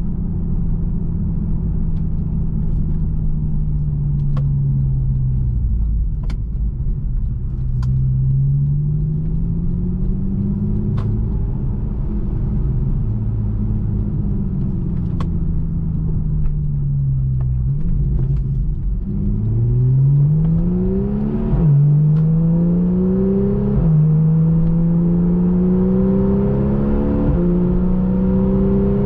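Porsche 911 Carrera S (991) flat-six engine heard from inside the cabin. It pulls at low revs, its pitch sagging and rising with the car's speed, then revs up hard with three upshifts in the second half as the car accelerates. A few faint clicks come through early on.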